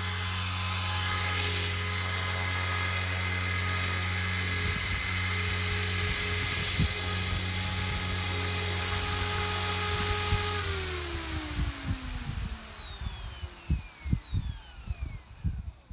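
Radio-controlled helicopter running with a steady, high rotor and motor whine. About ten and a half seconds in the power cuts suddenly and the rotor spins down, its pitch falling away over the last few seconds, with irregular low thumps of wind on the microphone.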